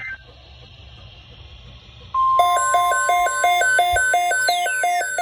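Emergency alert alarm tones: after a couple of seconds of faint hiss, a loud steady tone near 1 kHz starts, at once joined by a warbling pattern of alternating tones repeating about three times a second. Falling pitch sweeps come in near the end.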